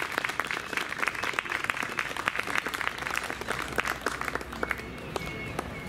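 Audience applauding after closing thanks, the clapping thinning out and dying down over the last second or so.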